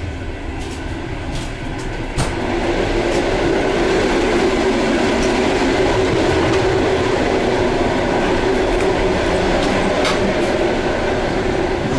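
Running noise of a moving express passenger train heard from on board: steady rumbling of wheels on rail with scattered clicks. About two seconds in there is a sharp click, after which the noise grows louder and a steady drone sets in.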